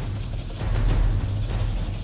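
Background music with a heavy, steady bass.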